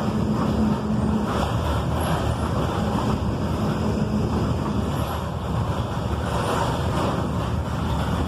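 Volkswagen 17.230 EOD truck's diesel engine running steadily, a low even hum with no change in speed.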